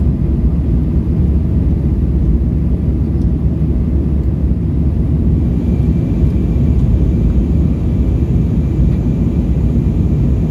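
Steady low roar of an Airbus A320's engines and airflow in flight, heard inside the passenger cabin. A faint high whine joins about halfway through.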